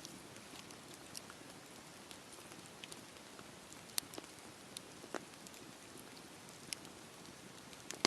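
Campfire burning: a soft steady hiss with irregular sharp crackles and pops of burning wood, a sharper pop about four seconds in and another a second later.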